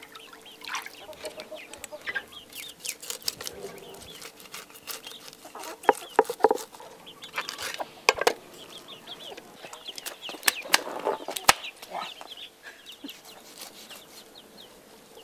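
Chickens clucking and chicks peeping, with sharp knocks and scraping from a cleaver on a wooden chopping board as fish are scaled and cut.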